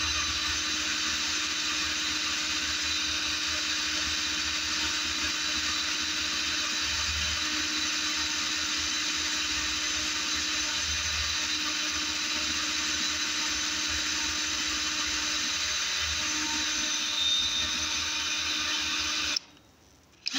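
Electric drill running steadily under load, a small twist bit cutting into a broken bolt in a cylinder head, making little headway even with cutting oil. It cuts off about a second before the end.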